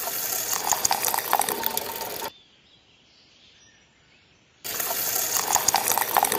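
Wet cement slurry pouring and splashing out of a small tipped mixer drum, in two stretches of about two and a half seconds each that start and stop abruptly, with a quiet gap between them.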